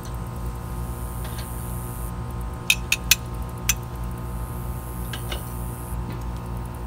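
Metal grill tongs clicking against the grate of a charcoal kettle grill while steaks are laid on: a few sharp clicks close together about three seconds in, over a steady low hum.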